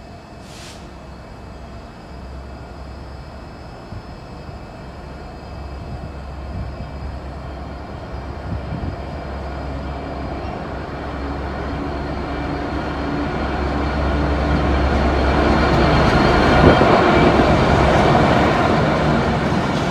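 Diesel freight locomotive approaching and passing close by, its engine and wheels growing steadily louder to a peak near the end. Under it runs the steady low hum of a train standing at the platform.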